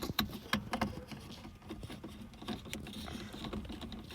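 Quick, irregular clicking and tapping of fingers and small bolts against the plastic housing of a vehicle's overhead DVD player unit, as the bolts are threaded back in by hand. The sharpest clicks come in the first second.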